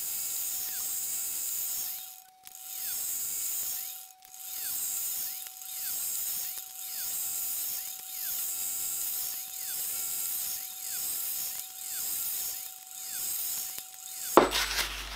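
Pillar drill press running with a steady whine while a ring of 2 mm holes is drilled into a metal cylinder. The sound swells and dips in a repeating cycle about once every second or so as hole after hole is drilled and the indexer is turned between them. It cuts off abruptly near the end.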